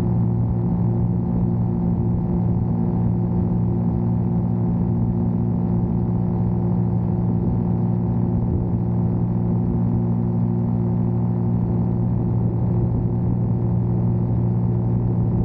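JK-05 Junior ultralight's piston engine and propeller running at steady climb power during takeoff, a loud even drone that does not change in pitch, mixed with rushing air noise.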